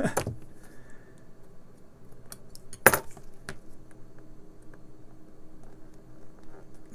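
Light clicks and clinks of a small metal tool working at a hearing aid's casing and tiny screws, with one sharp louder click about three seconds in.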